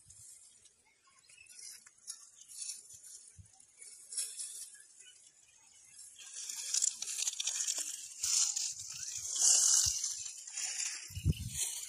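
Rustling, crinkling handling noise, faint at first and louder from about six seconds in, with a few soft knocks near the end.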